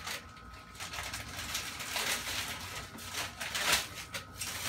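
Plastic wrapping rustling and crinkling in irregular bursts as a bottle is unwrapped from its packaging, loudest about two and three and a half seconds in.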